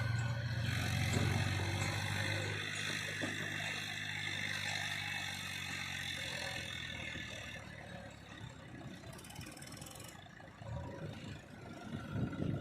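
Heavy diesel engine running with a steady low drone and clatter. The drone weakens after a couple of seconds and the sound slowly fades, swells briefly near the end, then cuts off abruptly.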